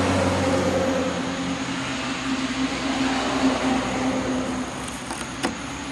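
A steady mechanical hum over a noisy rush, slowly fading, with one sharp click near the end.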